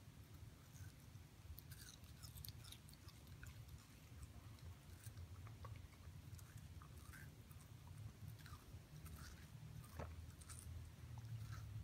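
Shiba Inu puppy chewing and biting at a hand-held watermelon slice: faint, irregular wet smacks and small crunches over a low steady hum.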